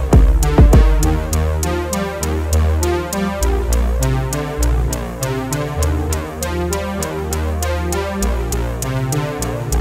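Electronic background music: a synthesizer bass line over a drum-machine beat, with a couple of heavy kick-drum hits in the first second and steady ticking hi-hats throughout.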